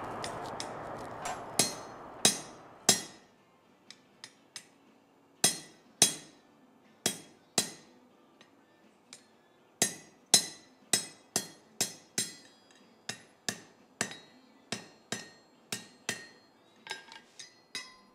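Hand hammer striking a spring fuller set on hot steel on an anvil: sharp, ringing blows at an uneven pace of about one to two a second, heavy strokes mixed with lighter taps. The fuller presses a groove into the bar that marks where the leaf ends and the stem begins.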